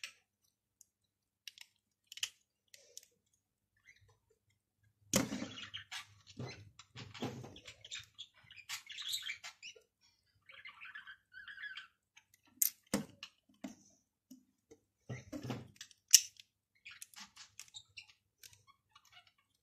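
Plastic Lego pieces being handled and pressed together: scattered sharp clicks, the loudest about 13 and 16 seconds in, and a stretch of rustling and clattering for a few seconds.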